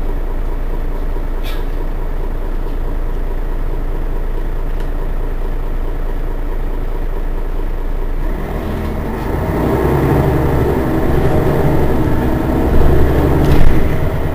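Mercedes-Benz Citaro city bus idling with a steady low engine hum. From about eight seconds in, a louder, rougher engine sound builds and holds to the end, with a brief loud peak near the end.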